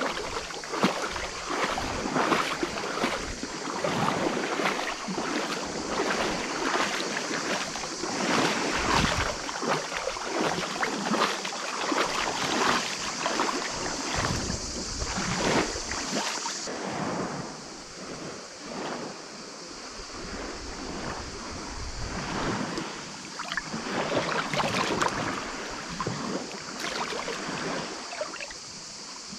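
Small waves lapping and sloshing right at the camera in shallow sea water at a pebble shore, in irregular swells, with wind on the microphone. A steady high hiss runs underneath and drops away suddenly about two-thirds of the way through.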